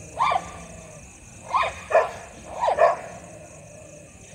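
A dog barking at another dog in a standoff: about five sharp barks, one near the start, then two quick pairs in the second half.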